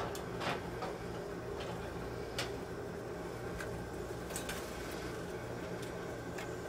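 A few sharp clicks and clinks of a metal jar lifter against a glass canning jar as a jar of orange juice is lifted out of the hot water bath canner and set down on a towel, over a steady low hum.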